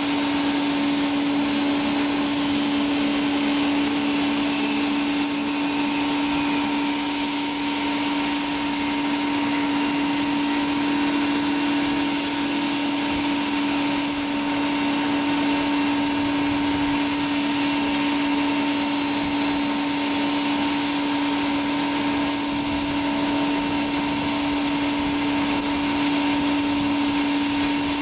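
Steady drone of machinery on an airport apron around a parked jet airliner: a constant pitched hum over an even hiss, with no change in level.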